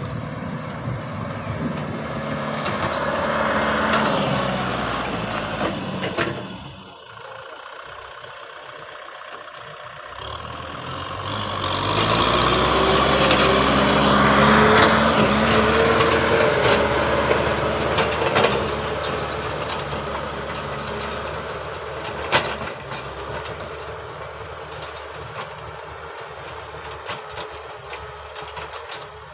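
Kubota M6040 tractor's four-cylinder diesel engine running under load while pulling a disc plow through dry soil. It is loudest as the tractor passes close about halfway through, then fades as it moves away.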